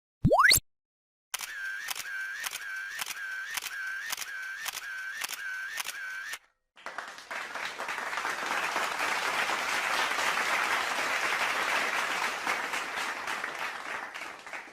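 A short rising whistle-like sweep, then a run of evenly spaced clicks, about three a second, lasting some five seconds. After a brief gap comes a sustained round of applause, many hands clapping, which fades near the end.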